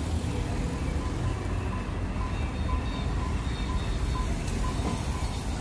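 Steady rumble of road traffic, with cars and motorbikes passing on the street, and music playing faintly over it.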